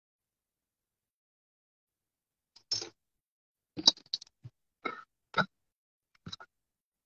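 Handling noise: a handful of short, scattered clicks and knocks, typical of a compass, a fineliner and a sketchbook being set down and moved on a tabletop. They start a little under three seconds in, and the loudest comes near four seconds.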